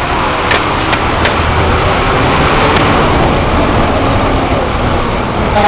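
Chicken bus running through town streets, heard from on board: loud steady engine and road noise with a low rumble. A few sharp rattles or knocks come between about half a second and a second and a half in.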